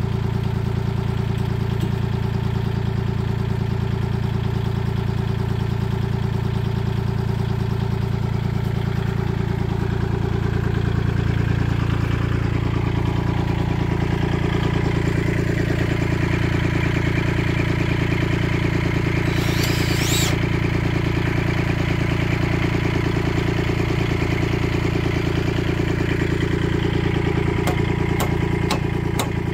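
Kubota compact tractor's diesel engine idling steadily. A brief high whine cuts in a little over two-thirds of the way through, and a few light clicks sound near the end.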